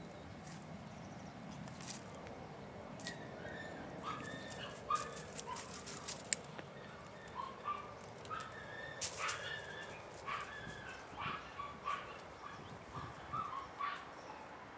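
Podenco puppy giving many short, high-pitched yips and whines while hunting through brush piles, starting about three seconds in, with a few sharp snaps among them.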